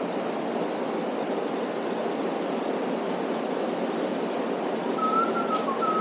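Steady rushing noise with no clear rhythm or engine note. About five seconds in, a thin, high, wavering whistle-like tone comes in over it.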